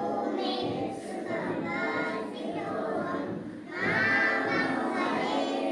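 A group of children singing together in unison, in phrases with a short break about two-thirds of the way through.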